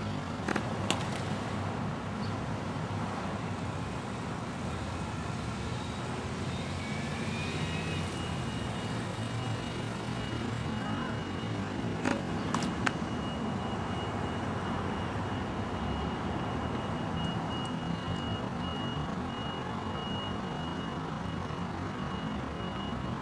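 Tennis serves: a sharp crack of racket strings on ball about a second in, and again about halfway through, the second followed by a couple of smaller knocks. Under it runs a steady rumble of road traffic, and from about a third of the way in a thin, steady high tone.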